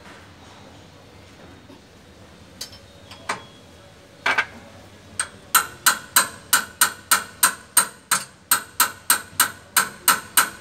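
A steady run of sharp metal-on-metal knocks, about four a second, preceded by a few scattered taps, like a hammer striking metal. It comes from repair work on a travelator's worn, noisy handrail drive chain.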